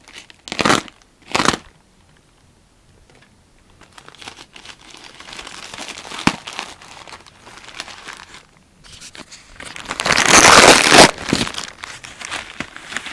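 A package being torn open and its packaging crumpled by hand: two short rips about a second in, then irregular crinkling with a sharp click midway, and a louder burst of rustling and tearing near the end.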